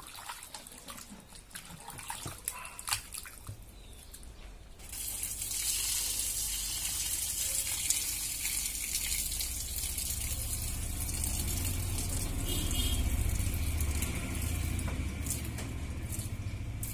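Hands squish and slosh raw pork pieces in a steel bowl of water, with small wet splashes. About five seconds in, a steady rush of running water starts and keeps on while the meat is rinsed and the bowl is tipped to drain.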